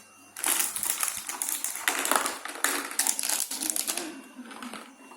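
Packaging being handled and crinkled: dense, fast crackling and rustling starting about half a second in and easing off after about four seconds, then a few quieter handling clicks.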